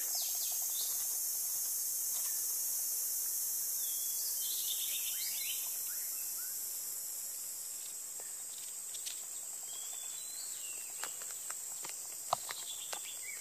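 Steady, high-pitched insect chorus, easing off a little after the middle, with scattered short bird chirps and a few sharp clicks near the end.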